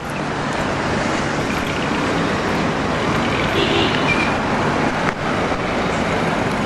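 Steady city street traffic noise: a constant rumble of passing vehicles.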